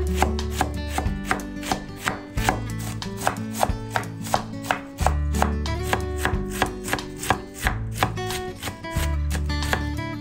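Large chef's knife shredding white cabbage on a wooden cutting board: a steady run of crisp cuts, each ending in a knock on the board, about two to three a second. Background music with a bass line plays underneath.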